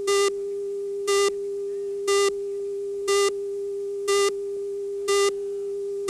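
Countdown leader tone: a steady mid-pitched tone with a louder beep once a second, marking off each number of the countdown.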